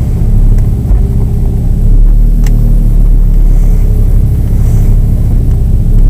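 Chevrolet Cruze running cold with a steady low rumble while the steering is checked, with a single sharp click about two and a half seconds in. Only tyre and power-steering noise is heard, with no creak from the restored strut bearing.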